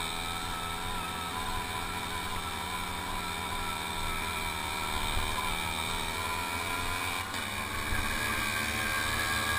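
Small two-stroke moped engine running steadily at riding speed, heard on board over a rough dirt track, with wind noise mixed in.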